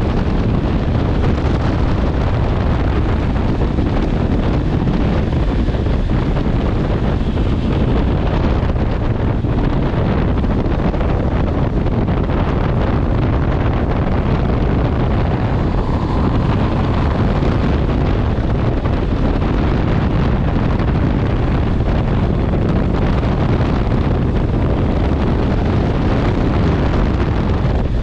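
Steady, loud wind noise on the microphone of a moving motorcycle, with the Honda CB650R's inline-four engine running underneath.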